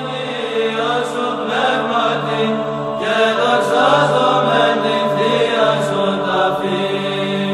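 Background music: chanted singing over a steady, low held drone.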